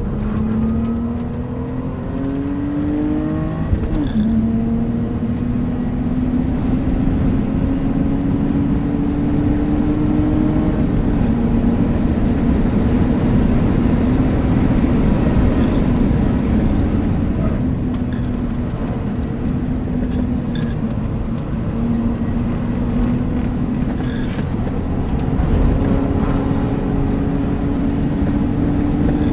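BMW Z3 engine pulling hard through the gears at track speed, its pitch climbing, with an upshift about four seconds in, then climbing again. Later its pitch drops back as the car slows and rises once more near the end, with steady road and wind noise throughout.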